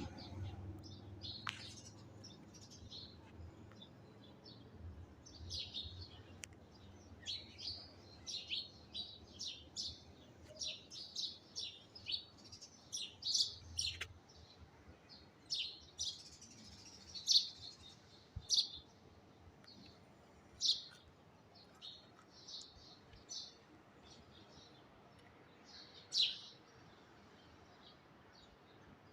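Small birds chirping and singing: a busy, irregular run of short high chirps, with a few sharp falling notes now and then.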